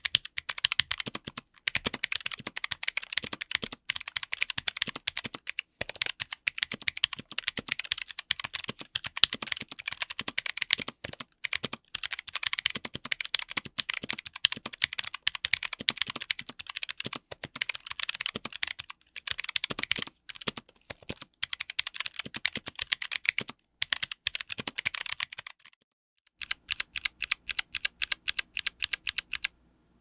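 Fast typing on a keyboard with Chosfox x Kailh Arctic Fox clicky switches, GMK doubleshot ABS keycaps, an FR4 plate and an aluminium case: a dense patter of sharp switch clicks and key bottom-outs. About 26 seconds in the typing stops briefly. A single key is then pressed over and over in an even rhythm.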